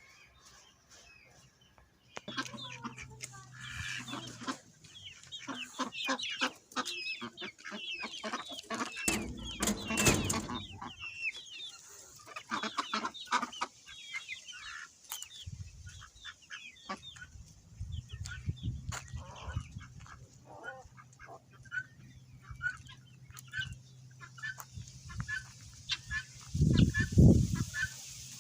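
Farmyard poultry: chickens clucking, with other birds calling in many short notes. There is a louder noisy burst about ten seconds in and another loud call near the end.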